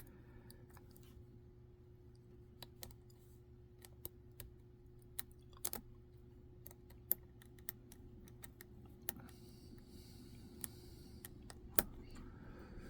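Lock pick and tension wrench working the pin stack of a Master Lock No. 3 laminated padlock: scattered small irregular clicks and scrapes as pins are set, with a few louder ticks. The lock feels stiff and hard to pick.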